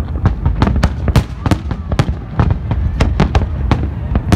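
Fireworks display: a dense, continuous barrage of aerial shell bursts and crackling, several loud bangs a second over a constant low rumble.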